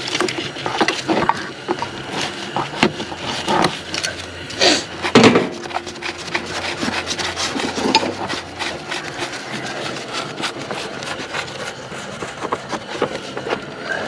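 Spin-on engine oil filter being loosened with filter-wrench pliers and turned off by gloved hand: irregular rubbing, scraping and clicking of the wrench and hand on the filter and the cardboard beneath it, with a couple of louder knocks about five seconds in.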